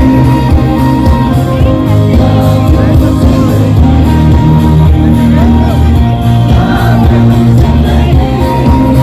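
Loud amplified live band music with singing and a crowd shouting along.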